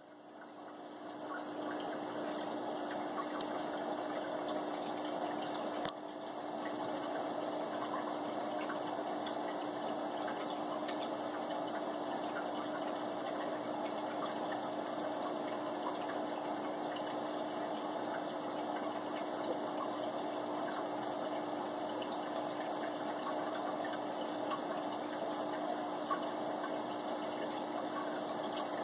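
Aquarium water bubbling and splashing where a stream of air bubbles breaks the surface, over a steady low pump hum. It swells up over the first two seconds, then holds steady.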